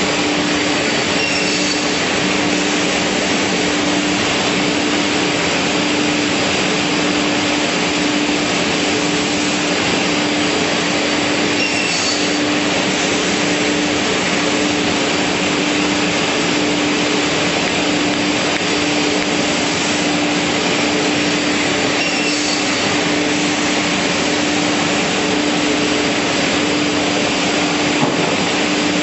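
Beam panel saw and its dust extraction running: an even, loud rushing noise under a steady hum, with no separate cut standing out.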